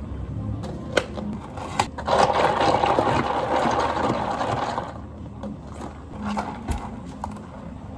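Café drink-making sounds behind the counter: two sharp clicks, then about three seconds of a steady rushing noise, then a few light knocks.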